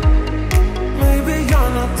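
Dance-pop music with a steady kick drum about twice a second under a bass line and melody.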